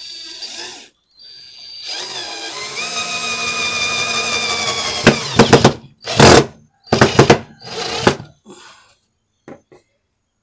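Cordless drill driving a screw into a wooden board: the motor runs for a few seconds, its pitch rising and then holding, stops with a few sharp clicks, then gives three short, loud bursts.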